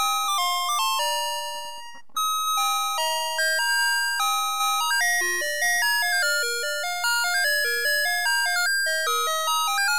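Navystar Press 'N Go toy fire truck's electronic sound chip playing a chiming melody of short notes that start sharply and fade. There is a brief break about two seconds in before the tune goes on.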